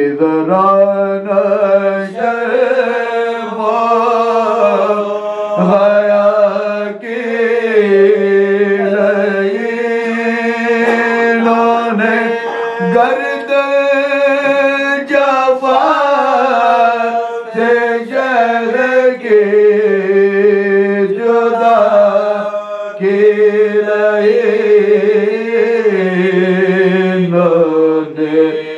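Men's voices chanting soz, an Urdu mourning elegy, in long held, wavering notes that slide between pitches, with brief pauses for breath.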